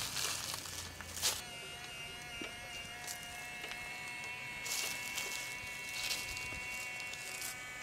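Small electric motor of a radio-controlled forestry truck with a model wood chipper and hydraulic crane, setting in about a second and a half in and running on with a steady high whine. Short hissing bursts come over it several times.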